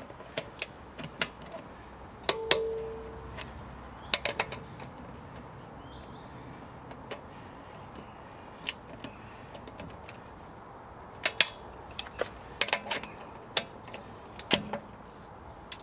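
Click-type torque wrench set to 90 Nm checking wheel nuts on an alloy wheel: sharp metallic clicks and knocks in small groups every second or two, as the wrench breaks at its setting and is fitted and ratcheted onto each nut.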